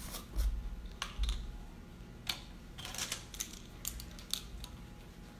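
Scattered sharp clicks and light clatter of handling a can of baking powder and a ring of plastic measuring spoons: the can's plastic lid being worked open and the spoons knocking together, with a few dull bumps on the counter in the first second or so.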